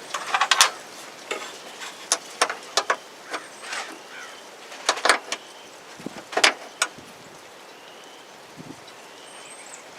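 Irregular sharp clicks and knocks of a battery cable, terminal and cover being handled and fitted, with the loudest clacks about half a second in and near the middle.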